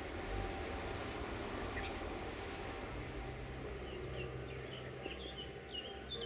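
Small birds chirping in short rising and falling calls, more of them in the second half, over a steady low mechanical hum.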